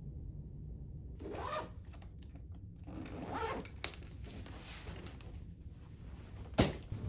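A zipper pulled twice in quick rising swipes, then a single sharp knock near the end.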